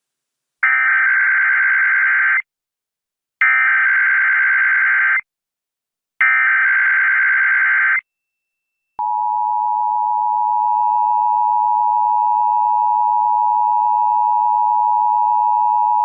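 Emergency Alert System test tones: three bursts of rasping SAME header data, each about two seconds long. About a second later the steady two-tone EAS attention signal (853 and 960 Hz) starts and holds. This opens a Required Monthly Test.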